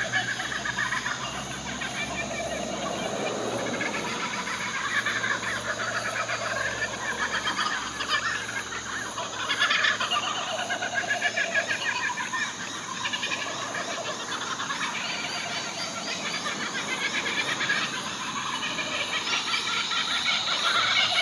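Laughing kookaburras calling in a continuous, rapid cackling laugh, with the calling swelling louder about halfway through and again near the end.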